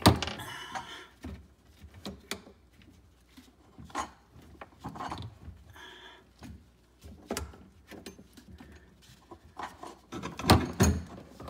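Scattered knocks, clicks and rustling as a garbage disposal unit is handled and fitted into place under a sink, with a cluster of louder knocks near the end.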